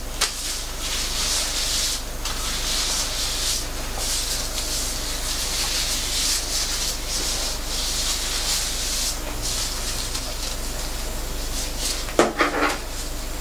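Gloved hands scrubbing shampoo lather through wet, thick textured hair: a crackly, hissing rubbing that swells and fades with each stroke. A short, louder sound comes near the end.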